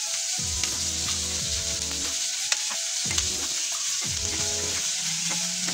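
Chicken pieces with sliced onion and garlic sizzling in hot oil in a nonstick frying pan as they are turned over, with a few sharp clicks.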